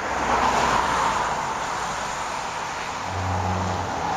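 Road traffic: a steady rush of passing tyres, with a low engine hum that comes up about three seconds in.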